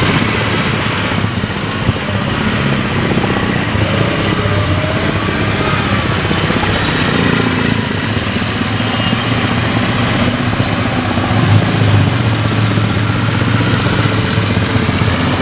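Police motorcycle and police car engines running slowly at walking pace, a steady low engine hum with traffic noise.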